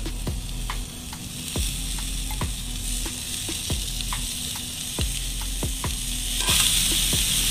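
Chicken kebab pieces sizzling on hot, oiled stones in a pot, the hiss growing louder toward the end. Irregular light knocks and clicks run through it as the second batch of meat is laid on the stones.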